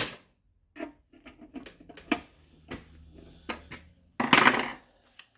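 Scattered metal clicks and clinks from a 1963 payphone being handled, with coins shifting inside its coin box, and one brief louder rattle about four seconds in.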